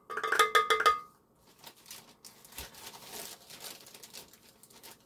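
A quick run of about eight clinks with a ringing tone as a measuring cup is knocked against the rim of a glass stand-mixer bowl, over in about a second. It is followed by fainter crinkling of the plastic biscuit-mix bag.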